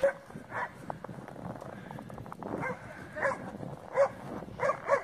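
A dog barking in short, high yaps: a couple near the start, a pause, then a quicker run of yaps through the second half.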